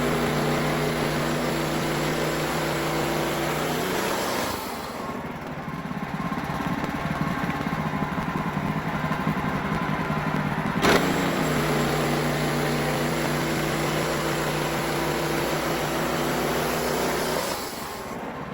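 Wood-Mizer LX55 bandsaw sawmill running, its band blade cutting through a pine log over a steady engine note. The cutting noise fades about four and a half seconds in, comes back around eleven seconds, and fades again near the end.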